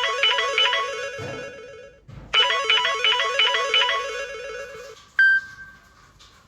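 Samsung Galaxy A13 ringtone: a quick melody of short notes plays, stops about two seconds in, and starts over. About five seconds in, a single ringing tone sounds and fades.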